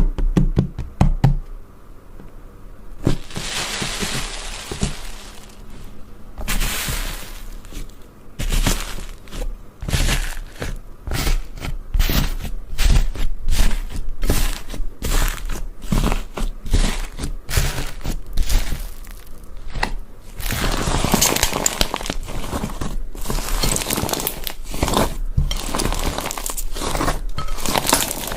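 Slime being squeezed, poked and pulled: a dense run of crackling pops and clicks, with thicker crinkly, crunchy stretches about three seconds in and again from about twenty seconds on.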